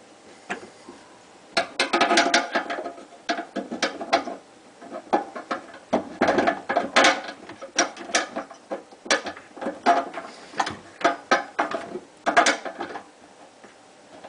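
A Badger garbage disposal unit being lifted and fitted onto its sink mounting ring: a run of irregular metal clanks, knocks and rattles lasting about eleven seconds.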